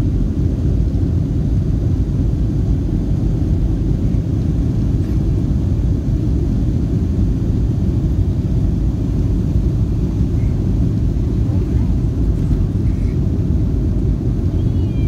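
Steady low rumble inside a jet airliner's cabin, the engines and the rolling on the runway as the plane moves along the ground.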